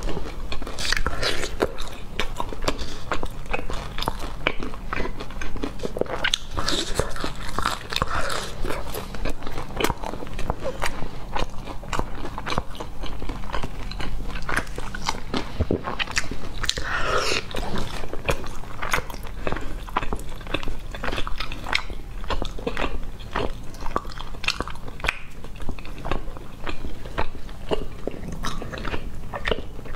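Close-miked chewing and crunching of crispy fried chicken, with many small irregular crunches and bites throughout.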